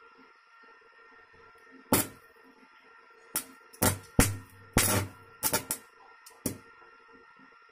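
Stick welding with an Elektra ARC200N inverter welder: the electrode strikes the arc on iron in a string of short, irregular crackling bursts, each under about half a second, the arc catching and breaking repeatedly from about two seconds in. A faint steady hum runs underneath.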